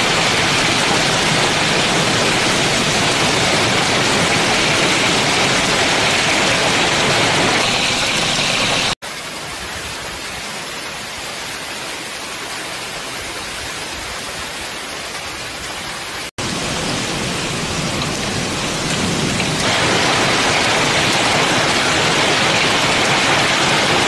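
Torrential rain driven by strong wind: a dense, steady hiss. It drops abruptly to a quieter level at about nine seconds and comes back louder after about sixteen seconds.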